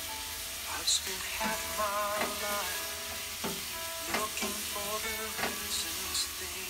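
Ground meat and diced vegetables sizzling in a pot, with a steady hiss. A spatula stirs through them, scraping and knocking against the pot about ten times.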